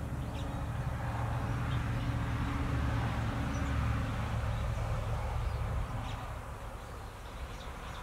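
A steady low buzzing hum that fades away about six seconds in, with a few faint, high, short chirps.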